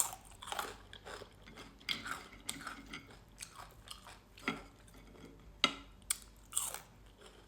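A person chewing and biting into crunchy fried food close to the microphone, with irregular crisp crunches, the sharpest about halfway through.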